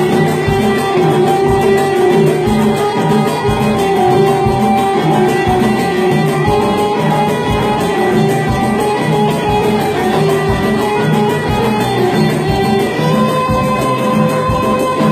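Instrumental passage of Moroccan Jebli folk music: a violin, played upright on the knee, carries the melody in long held notes over plucked strings and a steady hand-drum beat.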